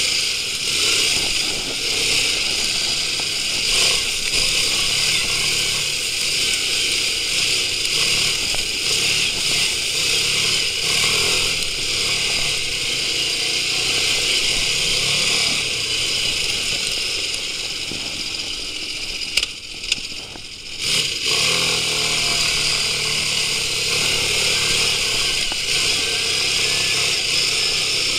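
Quad bike (ATV) engine running steadily as it rides along a dirt trail, the level falling away briefly about two-thirds of the way through.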